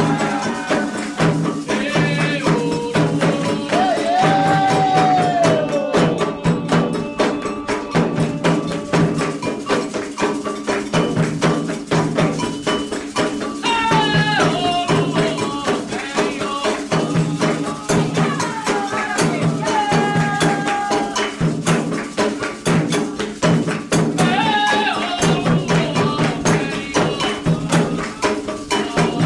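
Candomblé ritual music: steady, dense hand percussion with drums and rattles keeping a repeating rhythm, and voices singing in phrases that come and go.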